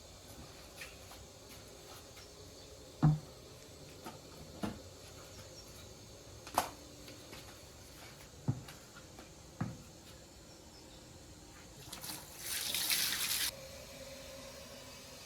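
A few scattered sharp knocks, the loudest about three seconds in, then a brief rush of water-like hissing about twelve seconds in that lasts about a second and a half.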